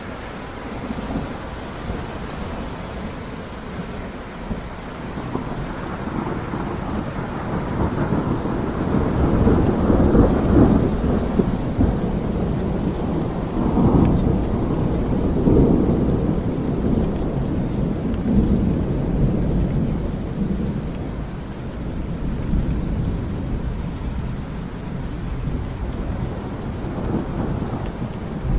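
Steady rain with rolling thunder: low rumbles swell in from about eight seconds in, peaking around ten and again around fourteen to sixteen seconds, then fade back under the rain.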